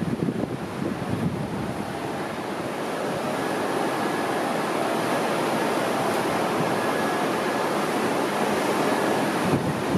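Steady, even wash of ocean surf breaking on a beach, with wind buffeting the microphone in the first second or so and again near the end.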